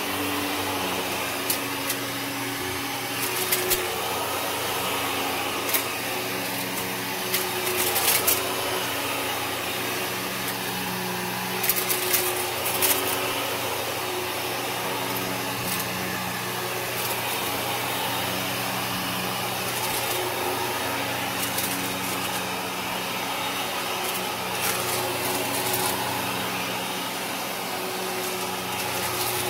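Kenmore upright vacuum cleaner running on carpet, its steady motor drone shifting slightly in pitch as it is pushed. Scattered sharp crackles of debris being sucked up give the crunch, with clusters about a quarter of the way in and again near the middle.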